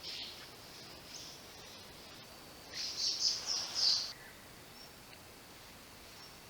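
Spot-breasted parrotbill calling: a soft high note at the start, then a quick run of about five loud, high-pitched notes lasting just over a second, over faint natural ambience.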